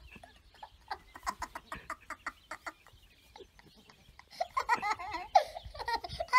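Toddler laughing in quick giggling pulses, pausing briefly around the middle, then laughing louder near the end.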